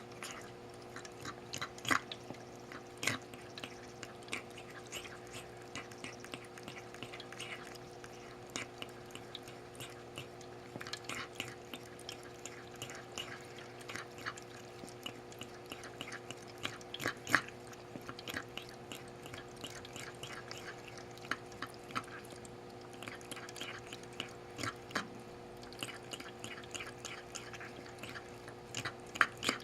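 A pet feeding at its bowl: irregular, wet mouth clicks and smacks a few times a second, over a steady low hum.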